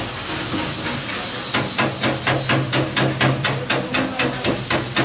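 A chipping hammer rapping a welded steel joint held in tongs, about four sharp metallic strikes a second, knocking the slag off the weld. The strikes begin about a second and a half in, after a steady hiss.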